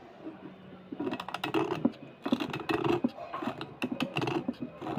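Small knife blade scraping along a slate pencil in a quick run of short, crunchy scraping strokes, starting about a second in.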